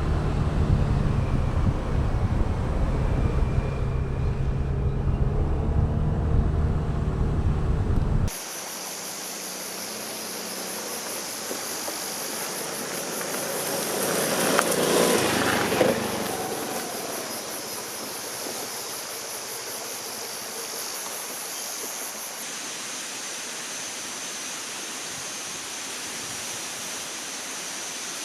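A small scooter engine running steadily while riding, cut off abruptly about eight seconds in. A steady rushing stream with a high, even buzz above it follows, swelling briefly louder around the middle.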